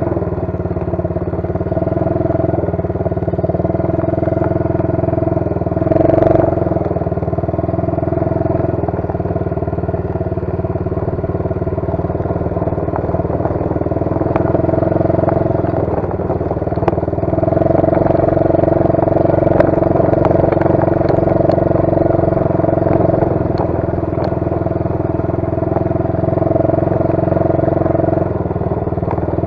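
125cc ATV's single-cylinder four-stroke engine running steadily while riding over rough grass, louder at times, with a few brief knocks.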